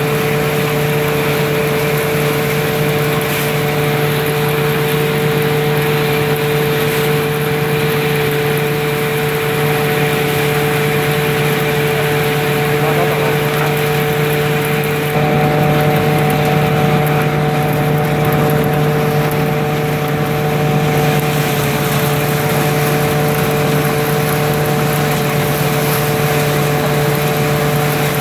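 Engine-driven threshing machine running steadily as dried Job's tears stalks are fed into it: a constant machine hum with a steady whine. It gets a little louder about halfway through.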